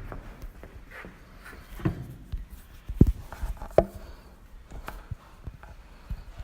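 A few scattered knocks and clicks, the sharpest about three seconds in and again just under a second later.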